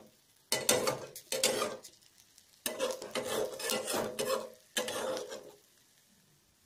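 Metal spatula scraping against a steel kadhai around a frying omelette, in four separate strokes, the pan ringing faintly with each. It falls quiet near the end.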